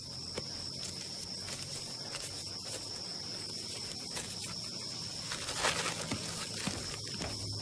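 Steady high, thin insect drone over a hiss of tropical ambience, with scattered faint clicks. There is a brief rustle of a bag being handled about five and a half seconds in.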